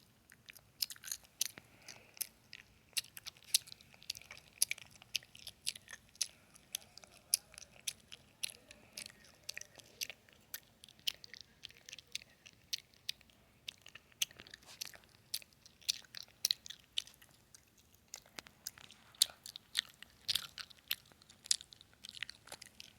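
Gum chewing close to the microphone: a dense run of wet, sticky mouth clicks and smacks, several a second, with a brief lull about three-quarters of the way through.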